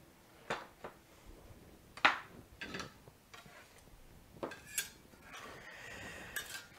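Metal knife and spatula clinking and scraping against a plastic cutting board and a plate as flatbread pizza slices are lifted and served. A handful of sharp clinks, the loudest about two seconds in, then a short scrape near the end.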